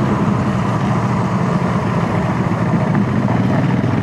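Motorcycle engine running steadily, with an even low pulsing and no rise or fall in revs.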